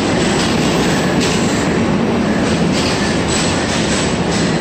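Passenger train coaches rolling slowly along a platform as the Humsafar Express pulls in: a steady rumble of wheels on rail, with a hissing wheel noise that comes and goes about twice a second.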